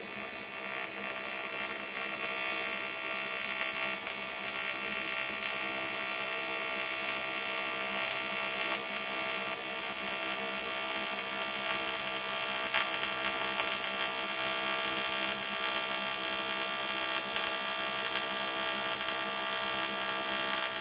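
AC TIG welding arc from an Eastwood TIG 200 AC/DC on aluminium, a steady buzzing hum, with the AC balance set to about 75% electrode negative.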